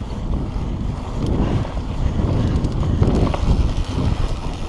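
Mountain bike rolling fast down a dirt trail: wind buffeting the microphone over a low rumble of knobby tyres on packed dirt, with a few sharp clicks from the bike along the way.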